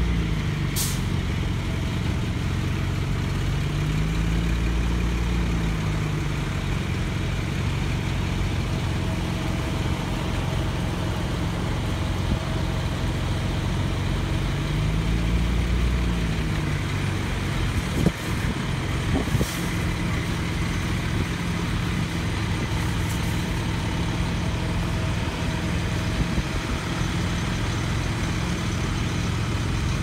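Diesel engines of parked utility bucket trucks idling, one engine's speed rising and falling back twice. Short hisses of air come about a second in and about two-thirds of the way through, with a few clicks just before the second.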